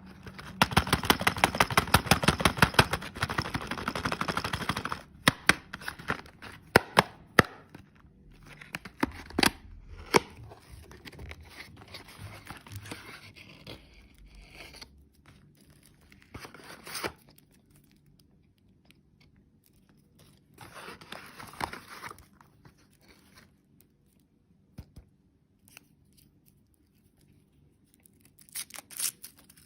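Plastic candy wrapping being torn open and crinkled by hand: a dense crackling tear over the first few seconds, then scattered clicks and short bursts of crinkling.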